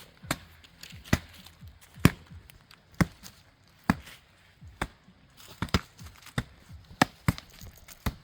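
Wood being chopped: sharp knocking blows landing on wood, roughly one a second and a little irregular.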